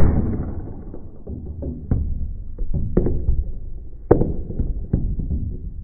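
Loud impact as the airsoft shot hits a row of small plastic tubes, fading over about a second. Several sharp clacks follow as the tubes tumble and land on the wooden floor, the loudest about four seconds in.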